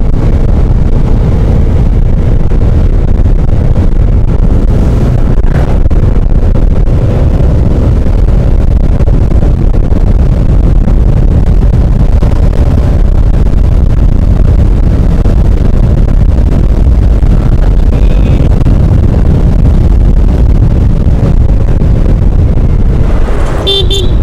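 Wind roaring on the microphone while riding a Yamaha Aerox 155 scooter, its single-cylinder engine running steadily underneath.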